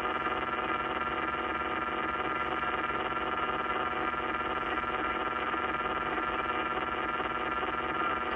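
Uniden SDS200 radio scanner putting out a steady, unbroken sizzle through its speaker, a fault noise that appears after the scanner has been on for a few hours.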